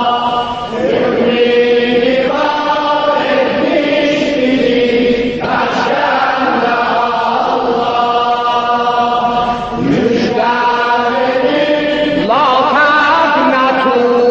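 A man's voice chanting an Azerbaijani mourning elegy for Imam Hussain in long held notes, sliding up and down in pitch at the turns of each phrase.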